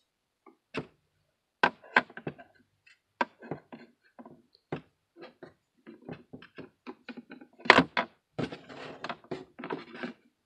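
Irregular handling noise of collectible figures on a shelf: taps, knocks and clacks, with one louder thunk about three-quarters of the way through and a scuffing rustle near the end.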